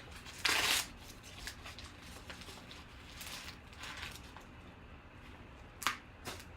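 A sealed trading-card pack being opened and its cards handled: a short rip of the wrapper about half a second in, then faint rustling and sliding of cards, with two sharp clicks near the end.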